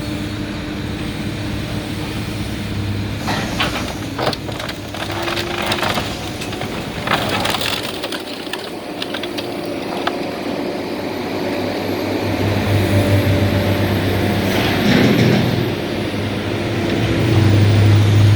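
A heavy-equipment diesel engine running steadily while wood and debris crack and crunch under it in scattered bursts. The engine grows louder in the second half.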